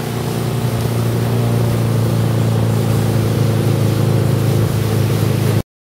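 Towing motorboat's engine running steadily at speed, with a constant rush of wind and water. The sound cuts off abruptly near the end.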